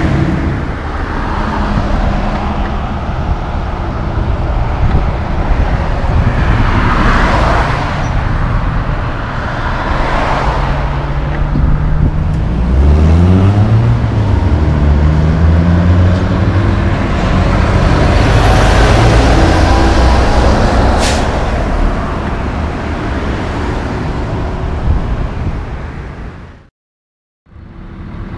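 Heavy diesel tractor-trailers and other traffic passing on a city street, with a truck engine rising in pitch as it pulls away about halfway through. The sound fades out to silence shortly before the end.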